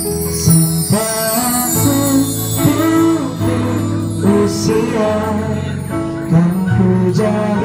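Live band playing a slow song: keyboard chords with a voice singing. At the start, a stick sweep across a mark tree (hanging bar chimes) makes a shimmering run that falls in pitch and fades over the first few seconds.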